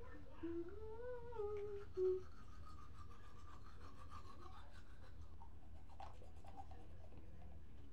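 A girl humming a short rising-and-falling tune with a toothbrush in her mouth for about the first two seconds, then faint scrubbing of a manual toothbrush against her teeth.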